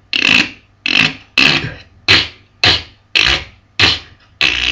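Beatboxer's mouth making the basic sound for a beatbox frog effect: air inside the mouth is pulled against the side of the tongue pressed to the upper molars, with the breath held. It comes as about seven short, sharp-starting noisy pulses roughly every 0.6 s, then a longer held one near the end.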